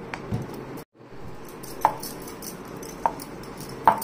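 Wooden rolling pin working paratha dough on a board, over a steady background noise, with three short, sharp sounds in the second half about a second apart. The sound cuts out for a moment just before one second in.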